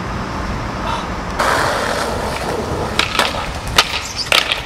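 Skateboard wheels rolling over stone paving, then several sharp clacks and knocks as the board strikes the ledge and ground in a bail.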